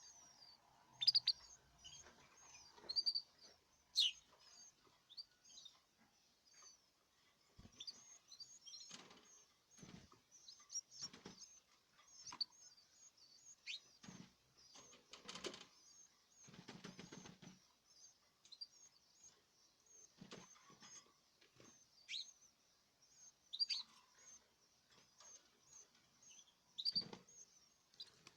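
Caged canaries chirping: a steady stream of short, high chirps with a few louder, sharp calls, and now and then brief rustling and fluttering in the cage.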